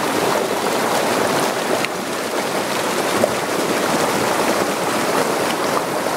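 A fast mountain stream rushing and splashing over rocks, heard close up as a loud, steady roar of white water.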